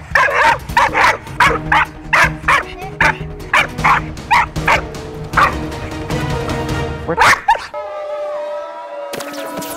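Young blue heeler barking hard and rapidly, about two to three barks a second, while lunging against its leash in reactive, aggressive behaviour, with music underneath. The barking stops about three-quarters of the way through, leaving music with gliding electronic tones.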